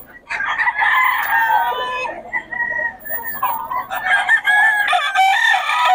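Several gamecocks crowing at once, their long calls overlapping at different pitches.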